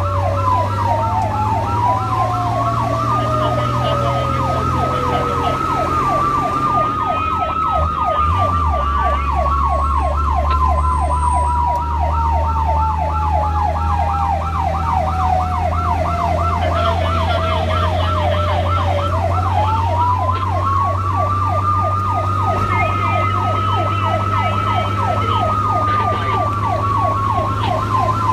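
Fire and rescue response vehicle sirens running: a fast yelp of about three sweeps a second over a slow wail that rises, holds and falls away over many seconds, above the steady drone of the vehicle's engine.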